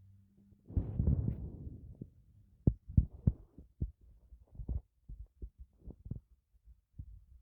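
A sleeping pet snoring: one longer, louder breath about a second in, then short, irregular low snorts.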